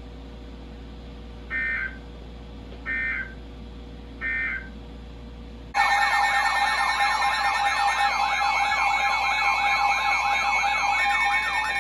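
Emergency Alert System tones: three short digital data bursts about a second and a half apart, the end-of-message code closing the broadcast. About halfway through, a loud alert tone comes in, steady tones under a fast rising-and-falling siren-like warble.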